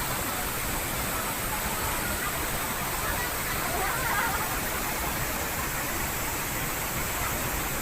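A waterfall's steady rush of falling water, constant and unbroken.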